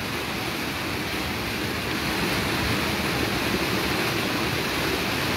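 River water rushing steadily through a small rapid.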